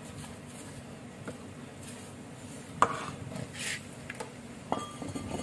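Metal clanks and scrapes from a Toyota Agya's removed rear brake drum being handled and put down: one sharp clank about three seconds in, a brief scrape, then another knock near the end that leaves a short ringing tone.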